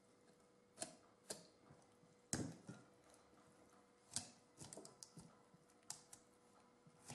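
Knife cutting up a whole raw chicken on a wooden cutting board: irregular sharp knocks and clicks of the blade against the board, the loudest about two and a half seconds in.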